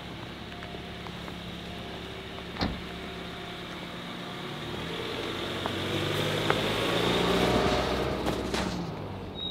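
Toyota minivan's engine running as the van pulls out, turns and drives close past, with its tyres on packed snow; the sound swells to a peak about eight seconds in, then fades. There is a short knock about three seconds in.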